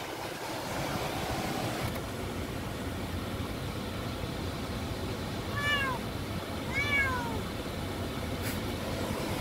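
Bombay cat meowing twice, about a second apart, each call arching up and then falling in pitch, over the steady low road noise inside a car.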